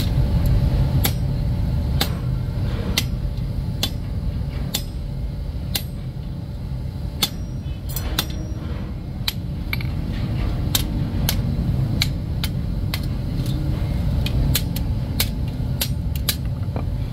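Hammer blows on hot iron blacksmith tongs on an anvil: a sledgehammer and a hand hammer striking in turn, about one blow a second at first and then faster, about two a second, in the second half. A steady low rumble runs underneath the strikes.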